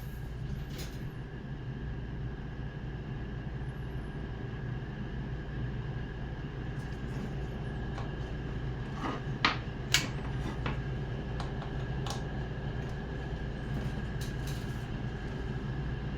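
A steady low hum with a few light clicks and taps scattered through the middle and later part.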